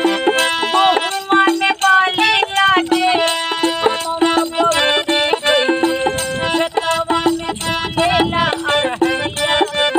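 Bhojpuri folk song: a woman singing with a wavering, ornamented voice over finger beats on a small two-headed hand drum, with a steady held-note accompaniment underneath.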